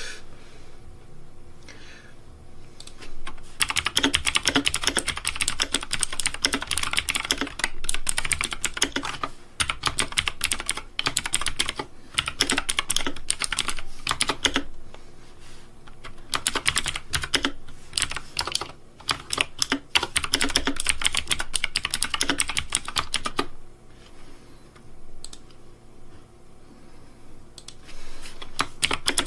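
Fast typing on a computer keyboard: long runs of rapid key clicks broken by short pauses, with a quieter stretch a few seconds before the end.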